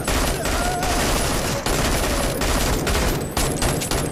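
Sustained automatic fire from an AK-pattern assault rifle: a dense, unbroken stream of shots with no pauses.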